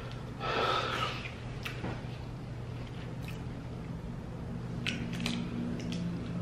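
Close-miked wet mouth sounds of eating cheesy nachos: a brief rustling wipe with a napkin about half a second in, then scattered lip smacks and wet clicks. A steady low hum runs underneath.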